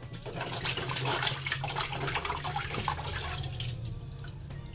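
Raw fish being rinsed by hand under running water: splashing and sloshing as the hands rub the fish in the stream, easing off about three and a half seconds in.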